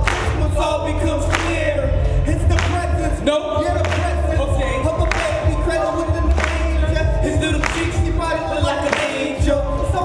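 Music with singing voices over a steady bass beat.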